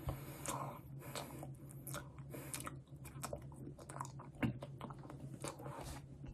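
Quiet, irregular wet mouth sounds of chewing a mouthful of toothpaste foam: soft smacks and clicks of lips and tongue, one a little louder about four and a half seconds in.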